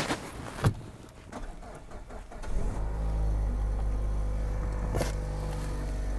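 Car engine started about two and a half seconds in, then idling steadily, heard from inside the cabin. Two short clicks or knocks come just before.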